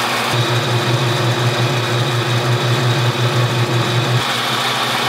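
Shopmaster Eldorado Bridgemill lathe running, turning down a 1¼-inch mild steel rod on a first cutting pass. A steady mechanical whir runs throughout, with a low pulsing hum that comes in about a third of a second in and stops about four seconds in.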